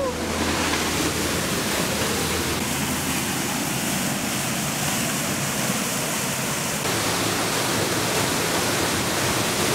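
Waterfall pouring down close by: a steady, loud rush of falling water, a little brighter and hissier from about three to seven seconds in.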